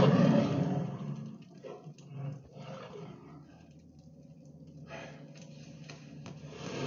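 Wolf growling and snarling, loudest in the first second, then dying down to quieter growls before building again near the end.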